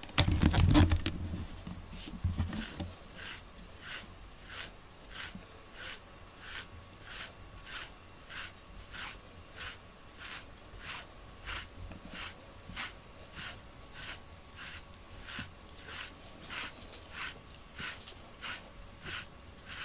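A FURminator deshedding tool raking through a cat's thick coat in quick, even strokes, about two a second, each a short scratchy rasp as the steel edge pulls out loose undercoat. A thump of handling comes in the first second.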